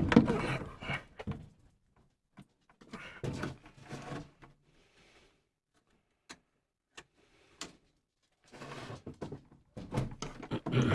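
Hand-handling noises on a furnace's pressure switch and its fittings: a sharp click at the start, then rustling, knocks and a few separate small clicks as a part is pushed and worked into a tight spot.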